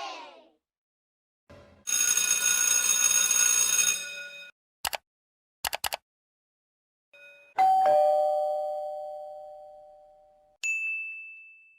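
A run of separate short sound effects: about two and a half seconds of bright bell-like ringing, then a few sharp clicks, then a struck chime that rings out and fades over nearly three seconds, and a short high ding near the end.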